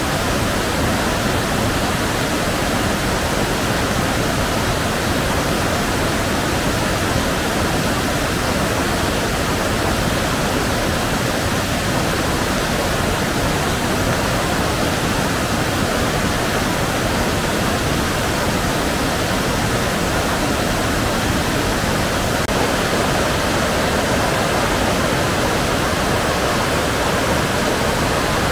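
Mountain river swollen by heavy rain, its water rushing loudly and steadily.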